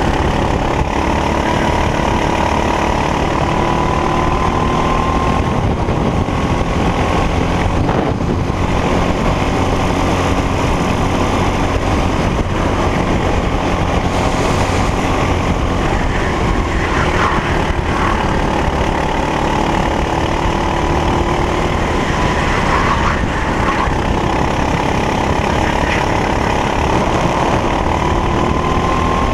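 Racing kart engine at full race pace, heard onboard: the engine note climbs steadily on the straights and drops back into the corners.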